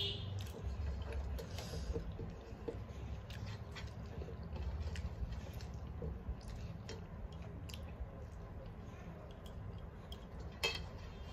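Fingers mixing and scooping curry-soaked rice on a stainless steel plate: soft squishing with scattered small clicks against the metal, and a sharper click near the end, over a low steady hum.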